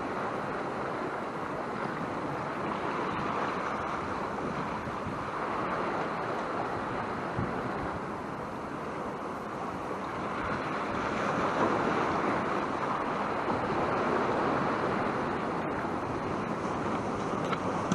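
Sea surf washing in steadily under strong wind, with wind buffeting the microphone; the wash swells louder about two-thirds of the way through.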